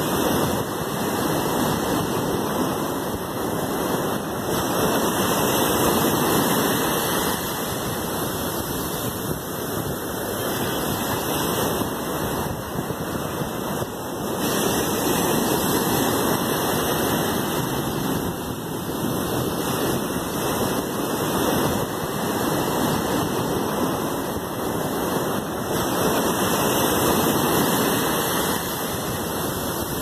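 Ocean surf breaking and washing up a sandy beach: a continuous rush of water that swells and eases as each wave comes in and draws back.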